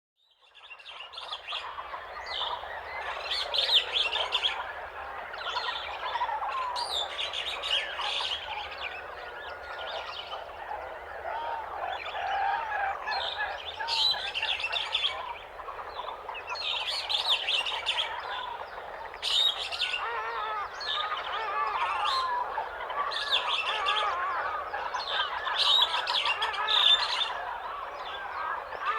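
African jungle morning ambience: a dense chorus of many birds chirping and warbling over each other. It fades in over about a second from silence, with bright, high bursts of calls every second or two.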